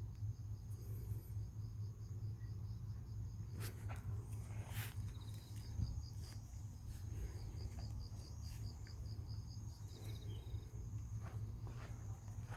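Insects chirping: a high, rapidly pulsing trill with a steady high buzz beside it, over a constant low hum, with a few faint clicks.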